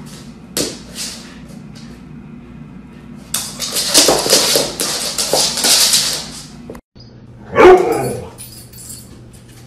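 A husky whining and yipping as it romps, with its paws scrabbling and thumping on a wooden floor for about three seconds. After a brief break comes a loud, wavering cry.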